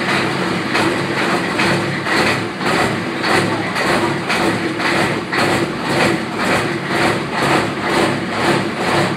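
Ford 7.3-litre IDI turbo diesel V8 of a 1994 F-250 idling just after a cold start, its block heater having been plugged in for hours. The diesel clatter pulses evenly about twice a second.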